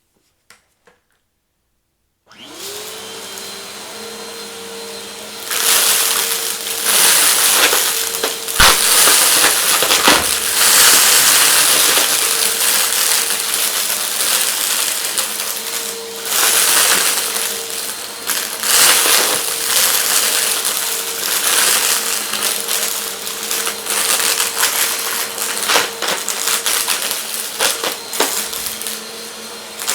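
Vacuum cleaner switched on about two seconds in, its motor spinning up to a steady hum. A few seconds later it starts sucking up hard debris, which rattles and crunches through it with frequent sharp clicks.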